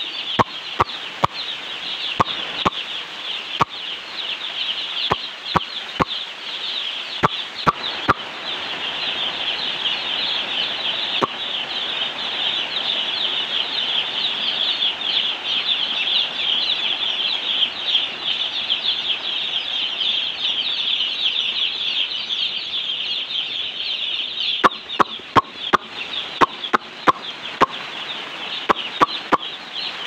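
A flock of young chicks peeping without pause in a dense, high-pitched chorus that swells in the middle stretch. Irregular runs of sharp clicks or taps sound over it during the first several seconds and again in the last five or so.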